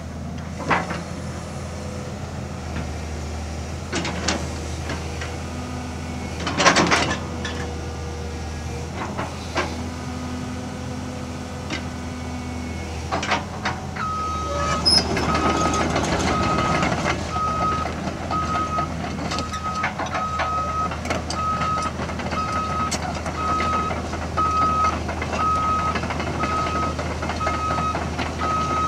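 Cat 320CL excavator's diesel engine running steadily, with the hydraulics working and the boom and bucket linkage clanking, loudest about seven seconds in. About halfway through, a motion alarm starts beeping steadily about once a second and keeps on.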